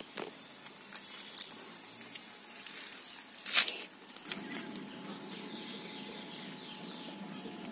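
Handling of a fishing net as fish are picked out into a bamboo basket: mesh rustling with a few sharp slaps and clicks, the loudest about three and a half seconds in. From about four seconds in, a steadier low rustling.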